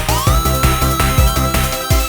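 Background music: electronic music with a steady beat of about four strokes a second and synth tones that glide up and hold.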